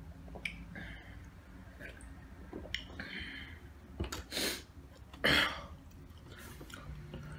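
Mouth and breath sounds of a person eating close to the microphone: faint ticks of chewing, then two short loud breath-like bursts about four and five and a half seconds in, the second the loudest.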